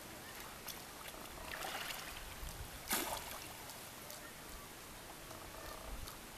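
Quiet seashore ambience: calm shallow water lapping faintly, with a short noisy swish about three seconds in.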